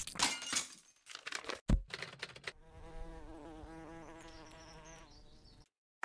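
A quick run of clicks and taps, then a fly-like buzzing for about three seconds, wavering slightly in pitch, that cuts off sharply near the end.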